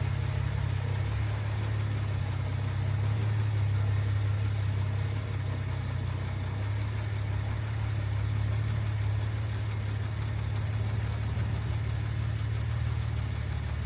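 Jaguar Mk2's XK straight-six engine running steadily at low revs, its note shifting slightly about six and a half seconds in.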